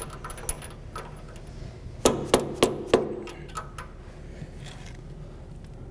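A rubber mallet tapping a deep well socket set over the motor shaft, a handful of light, sharp strikes bunched about two seconds in, after a few faint clinks as the socket goes on. The taps drive a new shaft seal into its bore.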